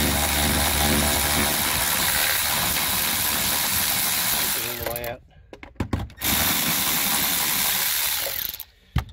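Power tool driving a 10 mm socket, spinning out the console's bolts. It runs for about five seconds, stops, then runs again for about two seconds, followed by a single click near the end.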